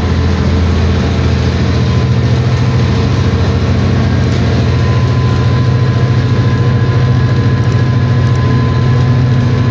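Henschel diesel locomotive's engine running steadily, a constant low drone with a fine regular pulse, heard from inside the cab.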